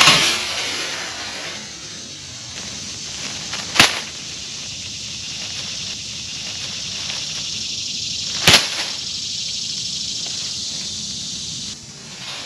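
A steady high hiss with three sudden sharp swishes: one at the start that fades over about a second, one about four seconds in, and one about eight and a half seconds in. The hiss drops off abruptly near the end.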